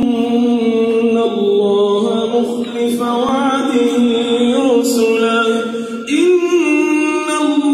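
A man's solo melodic Arabic religious chanting, amplified through a mosque microphone, with long held notes that waver and turn. He breaks for breath about six seconds in and starts a new, higher phrase.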